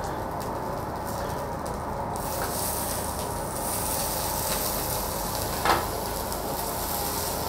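Pork belly and beef sizzling steadily on the hot plate of a WMF tabletop grill. One short clack a little past the middle, likely a utensil striking the grill plate.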